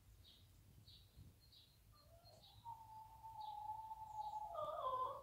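A hen gives a long, drawn-out call that grows louder and wavers near the end before stopping abruptly, over small high chirps repeating about twice a second.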